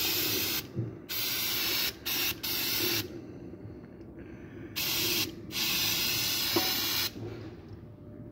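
Aerosol cleaner can spraying in short hissing bursts: about four in the first three seconds, then two more between five and seven seconds. It is cleaning drained-oil residue off the underside of the engine.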